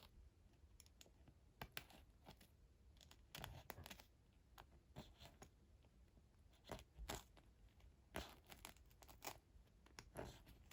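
Faint, irregular scratching and rasping of an X-Acto knife blade dragged under velcro hooks, prying lint loose, in short strokes about a second apart.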